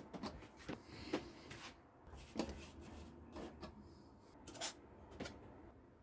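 Scattered light taps and clicks at irregular intervals, with some rubbing in between, as of small objects being handled.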